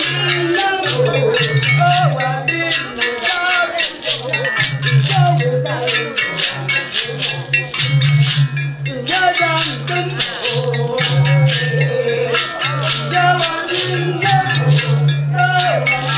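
Traditional ensemble music: a low drone from clay pot instruments played through long tubes, sounding in held notes with short breaks. Dense rhythmic rattles shake over it, with wavering voices in the middle.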